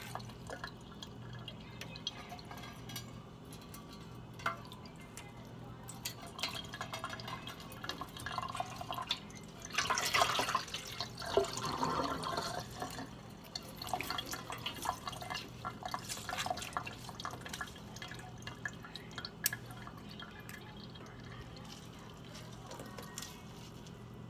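A water-soaked homemade squishy being cut open with scissors: small wet crackles, squelches and dripping, louder for a few seconds about ten seconds in. A faint steady hum underneath.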